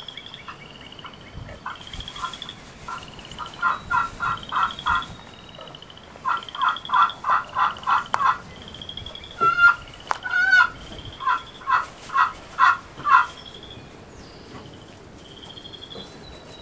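Wooden turkey box call yelping in runs of four to seven raspy notes, imitating a hen to call in a gobbler, with a louder, quicker wavering run about ten seconds in. A faint high chirp repeats steadily underneath.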